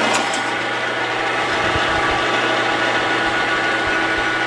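YUWE L1440 manual lathe running steadily with its spindle at 460 rpm, its geared headstock giving a steady whine over a machining hiss as the turning tool takes a heavy roughing cut of about 200 thou off the diameter of a bar in the chuck.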